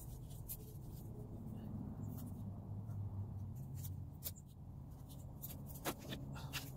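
Empty plastic plant pots being handled and set on a plastic table: scattered light knocks and scrapes, with a sharper knock about six seconds in, over a low steady hum.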